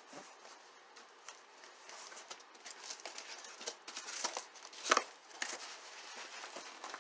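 A cardboard shipping box being opened by hand: scattered crinkling and rustling of packing material and cardboard, with one sharper snap about five seconds in.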